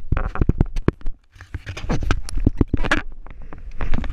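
A rapid, irregular series of sharp knocks and slaps against a boat's side at the waterline, with a short break about a second in, as a large shark is held against the hull.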